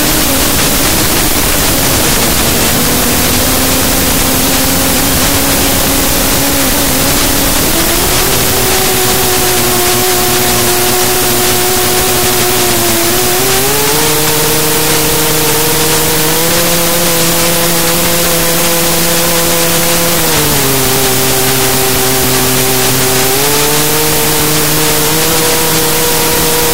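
Race quadcopter's electric motors whining, their pitch stepping up and down every few seconds as the throttle changes, over a loud steady hiss.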